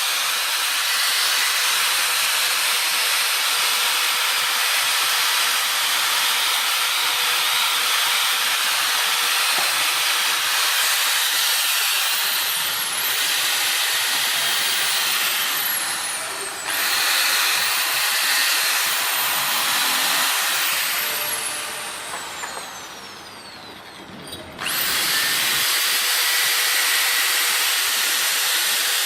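A tool running with a steady loud hiss. It dips briefly about 16 s in, fades away from about 21 s, and cuts back in abruptly about 25 s in.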